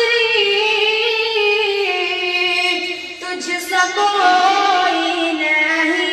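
A boy singing a naat, an Urdu devotional song in praise of the Prophet, holding long notes whose pitch slowly bends up and down, with a brief break about three seconds in.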